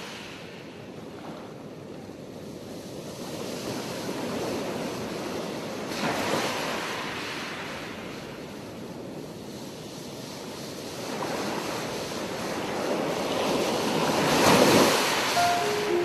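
A rushing wash of water noise swelling and ebbing in slow surges, loudest near the end. A few soft musical notes come in at the very end.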